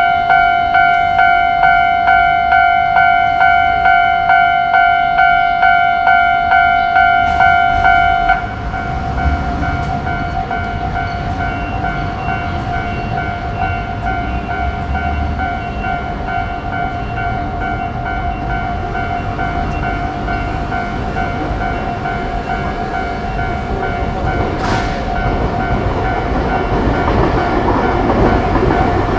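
Japanese level-crossing warning bell ringing in a steady electronic ding, a little over two strikes a second. About eight seconds in it drops suddenly to a fainter level but keeps ringing, while a passing train's rumble and rail clatter build and grow louder toward the end.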